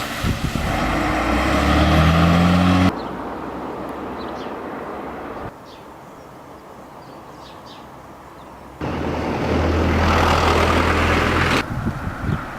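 Several outdoor clips cut together: a motor vehicle engine rising in pitch, then quieter outdoor noise, then a steady low engine hum that cuts off abruptly.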